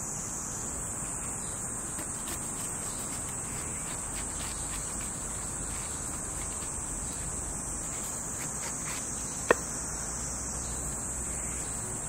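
A steady, high-pitched chorus of insects, unbroken throughout. A single sharp click stands out about nine and a half seconds in.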